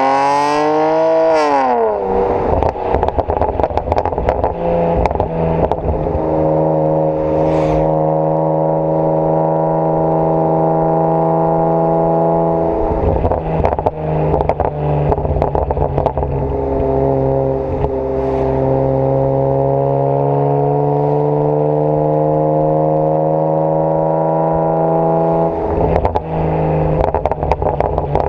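BMW 335i twin-turbo straight-six with decats and AC Schnitzer quad exhausts: the revs rise and drop sharply in the first two seconds, followed by crackles and pops from the exhaust. It then runs at steady, slowly climbing revs, with more crackling near the end.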